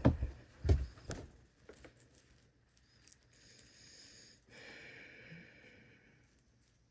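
Handling noise while working on alarm wiring: a few knocks at the start, then a faint scraping rustle for a few seconds that fades away.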